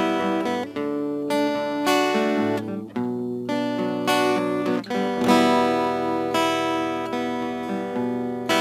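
Instrumental passage of an Arabic devotional song: a plucked-string melody, each note starting sharply and ringing out, with a brief dip about three seconds in.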